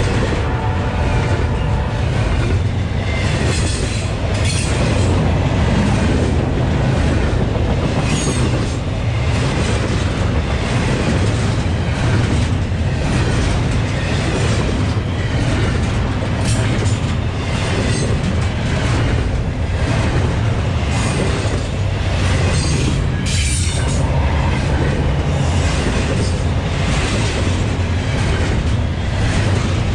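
Double-stack intermodal well cars rolling past: a steady heavy rumble of steel wheels on the rail, broken by irregular clacks as the wheelsets cross rail joints.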